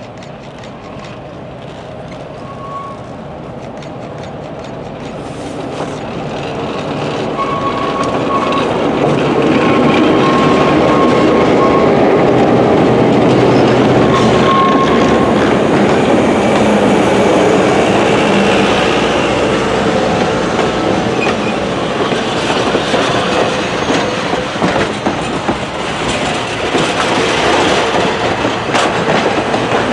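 Atlantic Coast Line E3 diesel passenger locomotive approaching and passing, its engine sound building over the first ten seconds. It is followed by the passenger cars rolling by, their wheels clicking over the rail joints.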